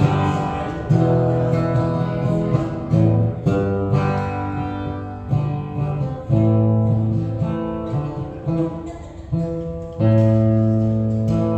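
Solo acoustic guitar, chords strummed and left to ring, a new chord every second or two, with a strong chord about ten seconds in.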